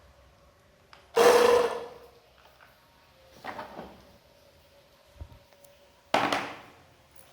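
Parts of a cordless pressure-washer gun being handled and fitted together: three short scraping clatters about a second, three and a half and six seconds in, the first the loudest, with a soft knock in between.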